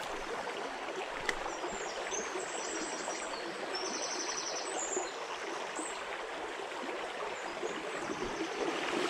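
Small shallow stream running over a gravel bed: a steady rush of flowing water.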